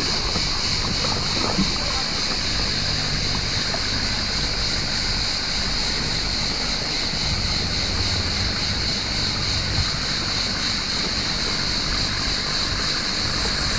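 A small boat motoring slowly across calm water: a steady low engine hum with water washing close by. A steady high-pitched buzz runs over it.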